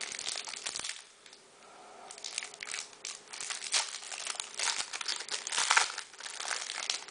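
Clear plastic wrapping crinkling and tearing as it is pulled off a stack of trading cards, in irregular bursts with a short lull about a second in and the loudest crackle near the end.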